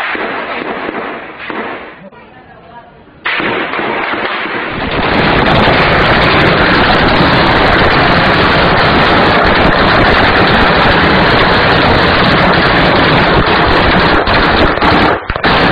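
Heavy gunfire. A burst of shots comes in the first two seconds, then after a short lull a dense, continuous barrage starts about three seconds in and stays very loud almost to the end.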